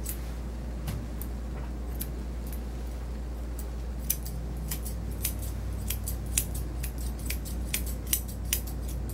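Grooming shears snipping the hair on a dog's face: short, sharp metallic snips, a few spaced ones at first, then coming quickly, two or three a second, from about four seconds in.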